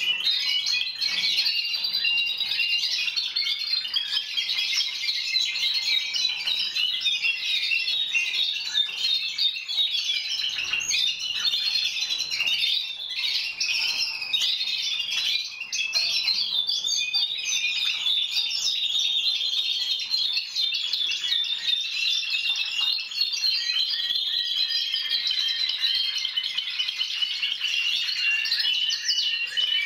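Many Timbrado Español canaries singing at once, a continuous chorus of overlapping trills and chirps.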